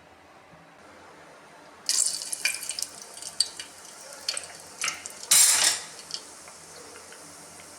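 Cooking in a pot: a metal spoon clinking and scraping against the pot amid hissing, starting suddenly about two seconds in, with the loudest clatter a little past the middle.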